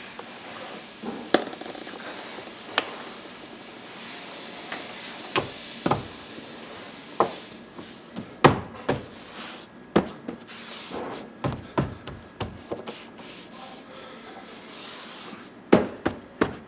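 Hand work on the car's interior: a string of irregular sharp clicks and knocks with rubbing in between as parts are handled and fitted, ending in a quick cluster of knocks.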